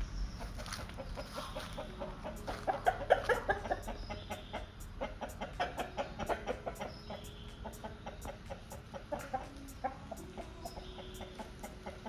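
Chickens clucking in runs of short, rapid calls, busiest from a couple of seconds in until near the end.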